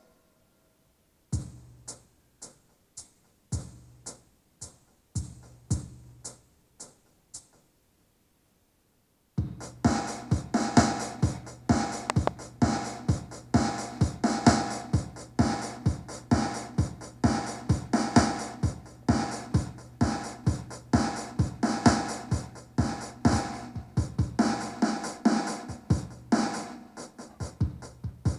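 Electronic dance track with a drum-machine beat playing through a JBL Flip 4 portable Bluetooth speaker in a bass test. After a brief silence come sparse beat hits for several seconds, then a short silent break, and about nine seconds in the full beat comes in, steady and bass-heavy.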